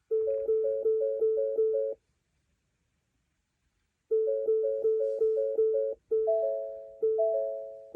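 2019 Ford Fusion's dashboard warning chime, a two-note electronic ding repeating fast, about three a second, for two seconds. It stops for two seconds, runs fast again, then slows to about one chime a second, as the car fails to start.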